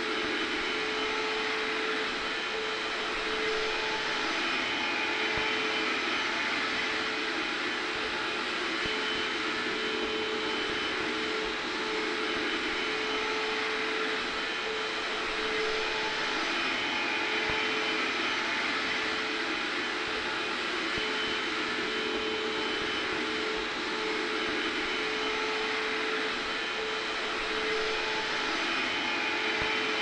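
Hair dryer blowing with a vacuum cleaner running faintly underneath: an even rush of air over a steady motor hum, unchanging throughout.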